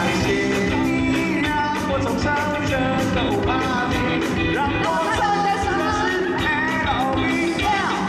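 Live rock band performing a song, with singing over drums keeping a steady beat and sustained bass notes.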